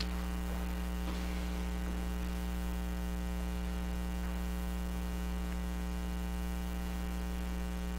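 Steady electrical mains hum with a stack of overtones, unchanging throughout.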